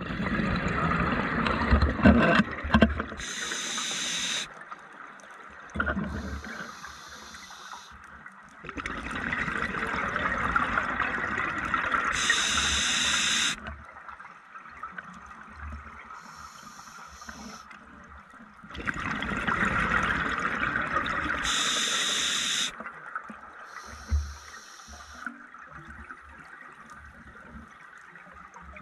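Scuba diver breathing through a regulator underwater: three long gushes of exhaled bubbles about nine or ten seconds apart, each ending in a sharp hiss, with quieter hissing inhalations between.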